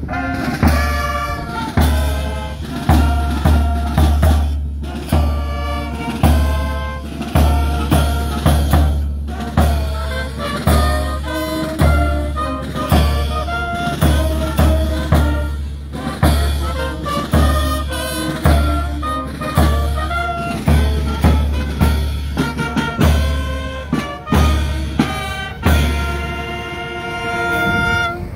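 Music with a heavy, repeating bass-drum beat and drum kit under a sustained melody.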